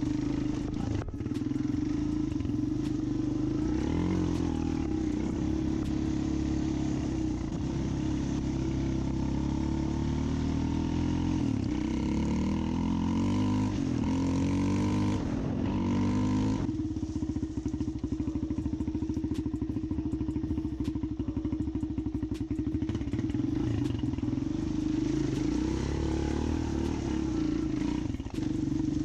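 Four-wheeler (ATV) engine running under varying throttle, its pitch rising and falling repeatedly for the first half, then settling to a steadier, lower running sound about halfway through.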